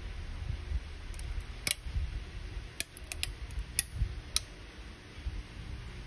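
A brown drink poured over ice cubes in a glass, the ice cracking and clinking in a scatter of sharp ticks, about seven over a few seconds.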